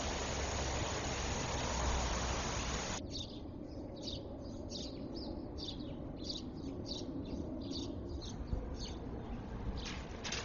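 Pop-up lawn sprinkler spraying with a steady hiss, which cuts off about three seconds in. Then small birds chirp in short, quick calls, two or three a second.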